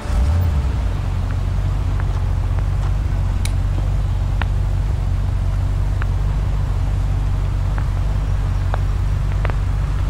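A vehicle engine idling: a steady low rumble, with a few faint ticks scattered through it.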